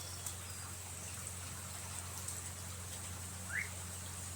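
Quiet background of a steady low hum and faint hiss, with one short rising bird chirp about three and a half seconds in.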